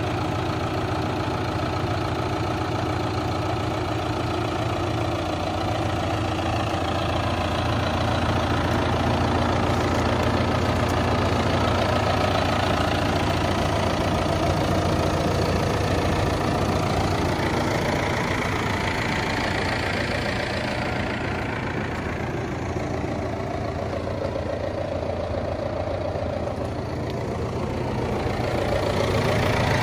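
John Deere 6125R tractor's four-cylinder diesel engine idling steadily, growing a little louder near the end.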